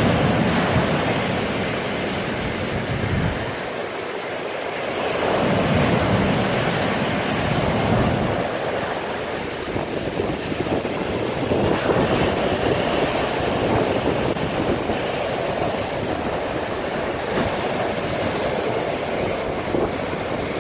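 Waves breaking and crashing on a lakeshore beach, swelling and falling every few seconds, with wind buffeting the microphone.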